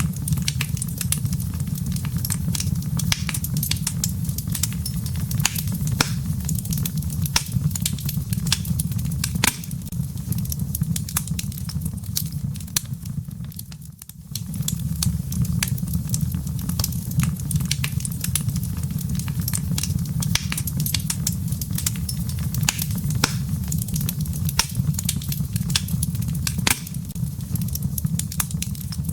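Wood fire burning in a fireplace: dense, irregular crackling and popping over a steady low rumble. The sound briefly dips about halfway through, then returns.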